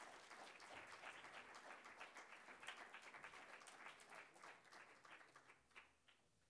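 Audience applauding, dying away to a few last scattered claps about five to six seconds in.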